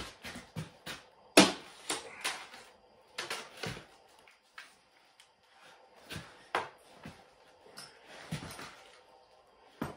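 Scattered knocks, clunks and clicks of a tire-and-wheel assembly and its mounting being handled on a wooden frame. The loudest thump comes about a second and a half in.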